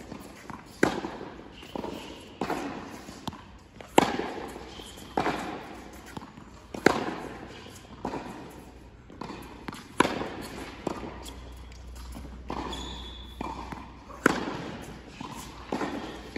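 Tennis rally in an indoor tennis hall: sharp racket-on-ball strikes and ball bounces about once a second, each ringing on in the hall's echo.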